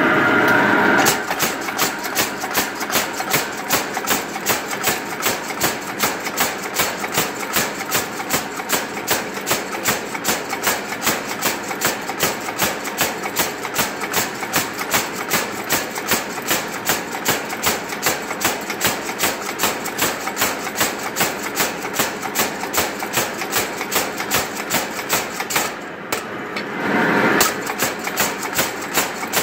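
Belt-driven mechanical power hammer striking a glowing bar of high-carbon steel between its dies at a steady rate of several blows a second, drawing the bar out. A steady roar comes before the blows begin, about a second in, and the hammering stops briefly near the end.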